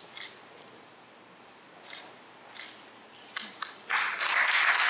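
A few faint scattered clicks and rustles, then a few separate claps and, about four seconds in, an audience breaking into applause.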